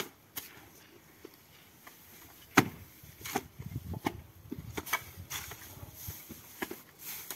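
Pitchforks forking and packing wet clay-and-straw mix onto a wall, giving irregular dull thuds and knocks with a rustle of straw between them; the loudest knock comes about two and a half seconds in.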